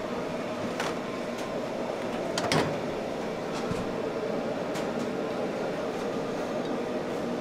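A stainless-steel steam cabinet drawer is pulled open and a metal rice cup is lifted out, giving several sharp metal clicks and clanks, the loudest about two and a half seconds in, over a steady kitchen hum.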